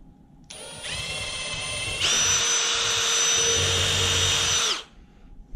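Milwaukee M12 cordless drill running steadily as it bores a pilot hole into a pine board. It runs louder and higher about a second and a half in, then stops.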